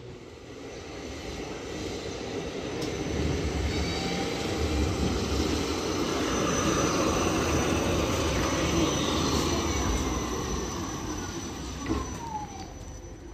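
A 71-407-01 tram rolls in on its rails and grows steadily louder as it passes close by. It then slows to a stop, with a whine falling in pitch near the end and a single clack just before it halts.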